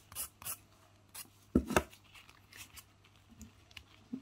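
Nail file rubbing across a false nail tip in short, uneven strokes, roughing up its shiny surface so the acrylic will grip; one louder stroke with a knock comes nearly two seconds in.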